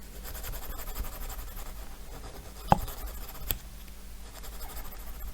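Small hand tool scraping at a small model part, making fine rasping strokes, with two sharp clicks, the first about two and a half seconds in and the loudest.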